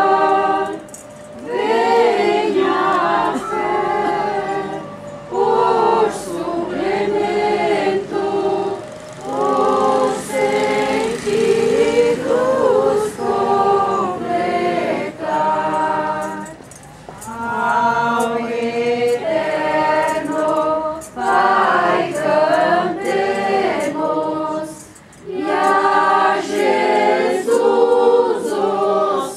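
A group of voices singing a hymn together, in sung phrases a few seconds long with short breaks between them.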